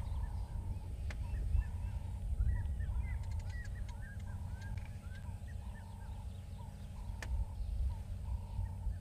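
Southern masked weavers chattering at their nest colony: many short, quick chirps and twitters that rise and fall, with a note repeated about twice a second, over a steady low rumble.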